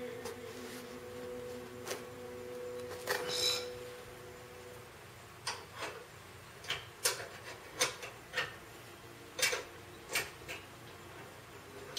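Sharp metallic clicks and clinks, about ten of them irregularly spaced over five seconds, from a hand wrench working on front suspension bolts. A faint steady tone fades out in the first few seconds.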